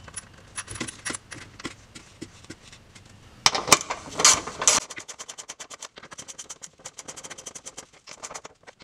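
Ratchet wrench clicking rapidly as the bolts holding the driveshaft carrier to the car are run down, after some scattered clicks and a few louder bursts of noise about halfway through.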